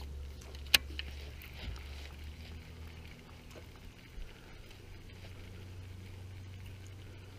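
Electric trolling motor humming steadily at low speed, with one sharp click just under a second in.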